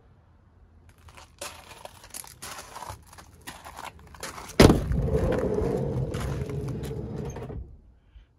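Footsteps crunching on gravel, then about halfway through a loud clunk as the Volkswagen T6 van's side sliding door is unlatched, followed by about three seconds of rumbling as the door slides open.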